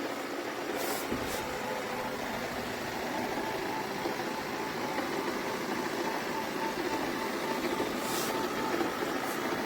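Robot vacuum running: a steady motor and brush whir, with a few short hissy swishes.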